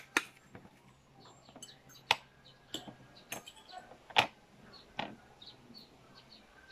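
Fork and spoon clinking against a plate and metal serving tray while eating: several sharp clinks, the loudest about four seconds in, with faint small ticks between.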